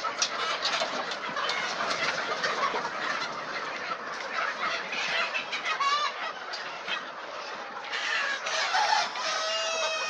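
A large flock of chickens, hens and roosters together, clucking and calling over one another in a dense, continuous chatter, with one longer drawn-out call standing out near the end.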